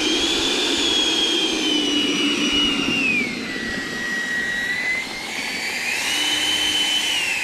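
90 mm electric ducted fan whining at high throttle. Its pitch steps down about three seconds in, holds, then spools back up about six seconds in.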